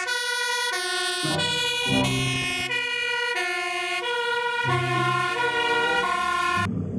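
Fire engine's two-tone siren, switching between pitches about every two-thirds of a second, cutting off suddenly near the end.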